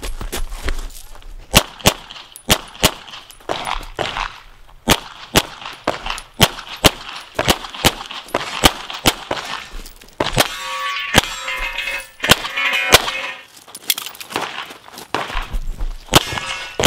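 A CZ Shadow 2 pistol firing a long string of shots, many in quick pairs. Steel targets ring out after hits, most clearly about ten to thirteen seconds in.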